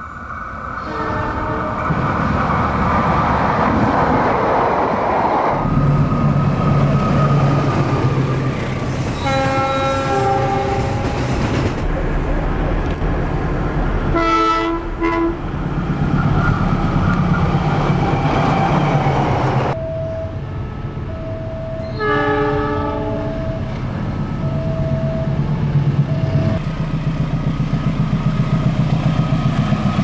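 Indonesian diesel locomotives sounding their horns, the horn signal Indonesian railways call semboyan 35, in several short blasts. Underneath runs the steady rumble of the diesel engines and the train rolling on the rails.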